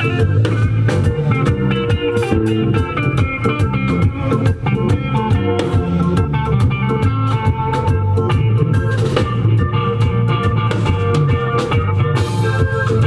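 Live reggae band playing, with drum kit and guitar carrying the groove.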